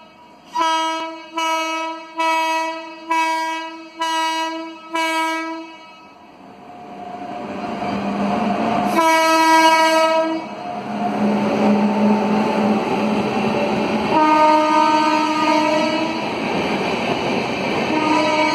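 WAP-7 electric locomotive's horn sounding six short blasts in quick succession, then the noise of the accelerating train builds as it approaches and passes. The horn sounds again with a longer blast about halfway through, another about three-quarters of the way through, and once more near the end.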